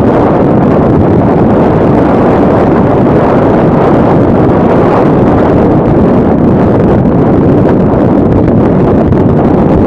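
Loud, steady wind rush buffeting the microphone, mixed with the road noise of a moving car.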